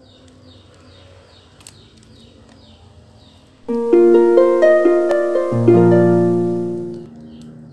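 Intro music: a harp-like plucked arpeggio starts about three and a half seconds in, climbs in quick notes, then rings out and fades. Before it there is a quiet stretch with faint, short high chirps repeating about twice a second.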